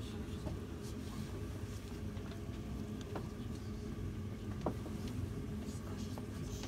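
Steady low hum of a crowded stone room, with a few faint clicks and knocks.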